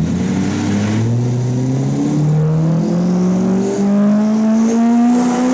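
Turbocharged drift car engine under full load on a dyno, its pitch climbing steadily in small steps as the revs rise. It is a test run with the boost-control solenoid set to 20 Hz, to see whether that frequency causes the car's weird turbo noise.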